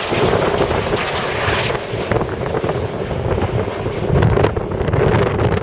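Jet noise from Red Arrows BAE Hawk T1 display jets flying past in formation: a loud, steady rushing that swells about four seconds in. Wind buffets the microphone throughout.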